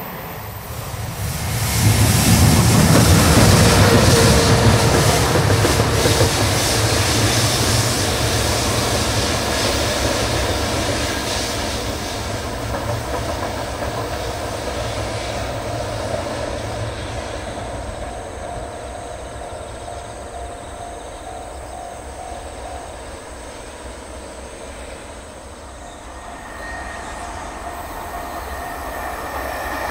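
JR Freight EH500 electric locomotive running light, with no train, passing close with a rumble of wheels on rail and then fading slowly into the distance. Over the last few seconds the rumble of another approaching freight train builds.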